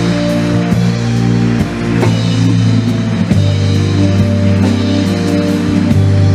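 Band music with drum kit, guitar and a bass line of held low notes that change every second or so.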